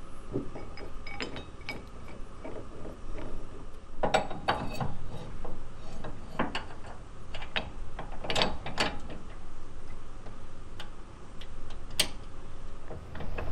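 Metal clinks and clicks of tow-recovery hardware: a shackle being handled and fitted into a pickup's rear receiver hitch. They come in scattered clusters, with one sharp click near the end.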